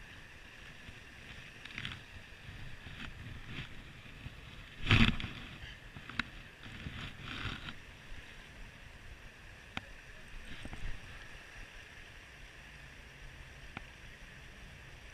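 Steady low outdoor noise by still water, broken by a few sharp clicks and soft knocks, the loudest a single thump about five seconds in.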